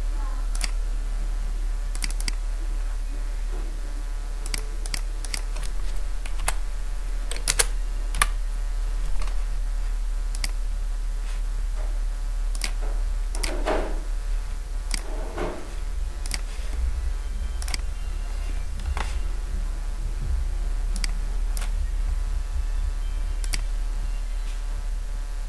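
Irregular computer mouse and keyboard clicks, scattered single taps, over a steady electrical mains hum.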